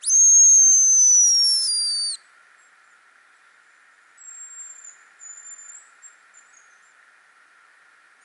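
Hazel grouse decoy whistle (a homemade lure) blown close by: one long, thin, high whistle of about two seconds that steps down in pitch near its end and cuts off. Some two seconds later come fainter high, thin whistles, a hazel grouse answering the call from further off.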